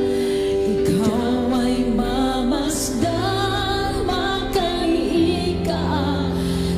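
Worship music: a woman singing a slow Tagalog worship song over sustained keyboard chords.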